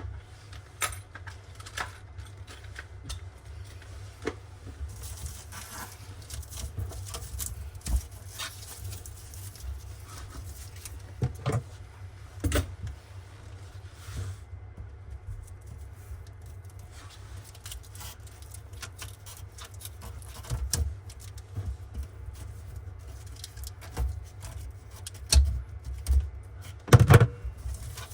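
Scattered light clicks, taps and clinks of tools and faucet parts being handled during a kitchen faucet replacement, with a few louder knocks about halfway and near the end, over a steady low hum.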